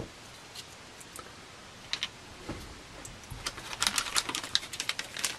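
A few light clicks as small plastic parts are set down on a table, then, from a little past halfway, a rapid run of crinkling and rustling as small plastic parts bags are rummaged in a cardboard box.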